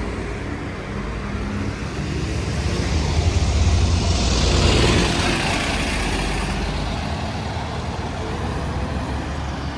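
ADL Enviro 400 MMC double-decker bus running, its engine swelling louder about three to five seconds in and then easing off, with a faint rising whine later on.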